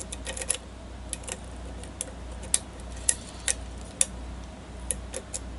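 Lock pick clicking against the pins inside a pin-tumbler challenge lock during single-pin picking: sharp, irregular metallic clicks, a few a second.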